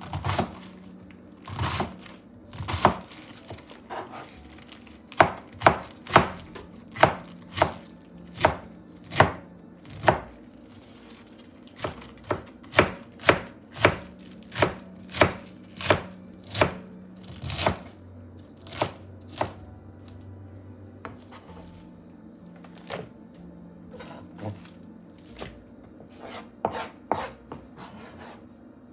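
Chef's knife slicing green cabbage into thin shreds on a plastic cutting board. Each cut ends in a sharp knock of the blade on the board, often about two a second, in runs with short pauses between.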